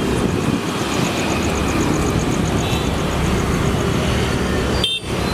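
Road traffic on a busy street, a steady dense rumble of passing vehicles, with a faint rapid high-pitched pulsing, about eight pulses a second, over most of it. The sound drops out for a moment near the end.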